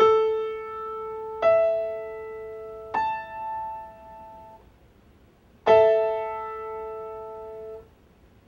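Piano playing A, then the E above it, then the A an octave up, one after another so that they ring together; about six seconds in, all three are struck at once as a chord. These are the tonic, dominant and upper tonic of the A major scale.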